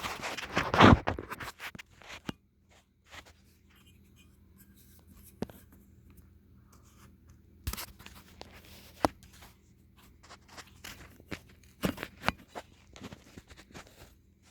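A loud scraping rustle about a second in, then scattered clicks and taps over a faint steady low hum, the hum likely from the Heritage Lancaster ceiling fan's motor running.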